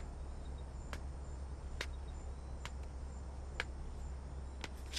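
Quiet background: a steady low hum with sharp light clicks about once a second and faint high chirps.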